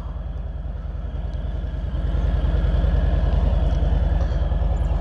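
Harley-Davidson Street Bob's Milwaukee-Eight V-twin engine running with a steady low pulsing beat, getting louder about two seconds in.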